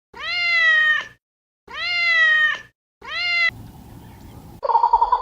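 A cat meowing: two drawn-out meows about a second long, then a third cut off short. After a brief faint hiss, a different warbling call starts near the end.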